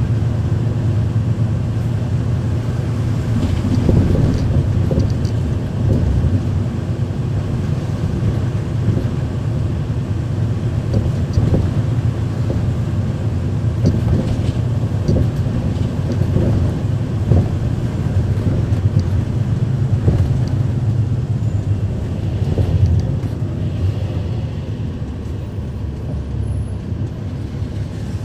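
Interior sound of a 2012 NABI 416.15 transit bus under way, dominated by its Cummins ISL9 diesel engine running steadily, with occasional knocks and rattles. The engine sound eases a little near the end.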